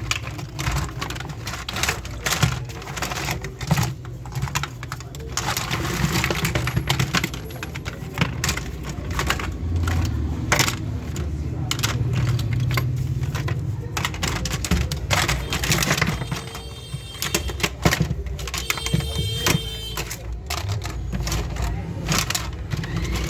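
Irregular clicking and clattering of a plastic toy gun being handled and taken apart. About 16 to 20 seconds in, a buzzy pitched sound comes in and out.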